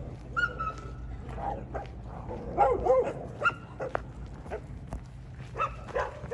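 Stray dogs barking, yelping and whining in a territorial scuffle, as the pack sets on a newcomer. The short, sharp cries come in clusters, loudest about two and a half to three seconds in.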